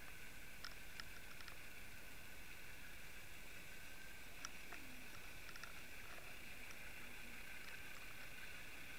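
Muffled underwater audio: a steady hiss with scattered faint clicks.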